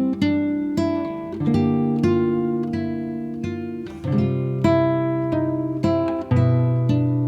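Background music: acoustic guitar, plucked notes and chords ringing out one after another.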